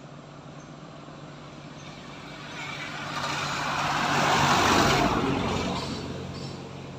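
A road vehicle passing by: its noise swells to a peak about four to five seconds in, then fades away.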